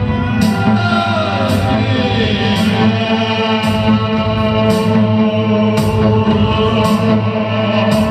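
A band playing live music with amplified guitar: held, droning chords that never stop, a few pitches gliding downward early on, and a short hissy percussive hit about once a second.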